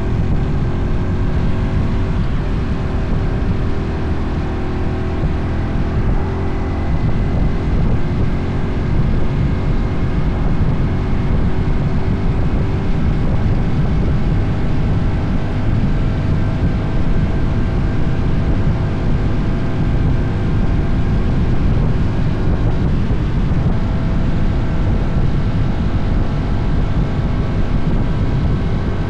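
Wind buffeting the microphone of a motorcycle cruising at steady speed, with the engine's faint, even hum underneath.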